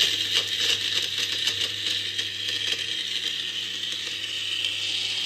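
Personal blender motor running steadily, dry-grinding oats and almonds, with a rattle of hard pieces hitting the plastic jar. The sound eases off a little after the first couple of seconds.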